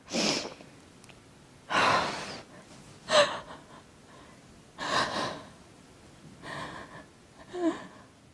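An elderly woman crying behind her hands: about six ragged, gasping breaths with quiet between them, a couple carrying a brief catch of voice.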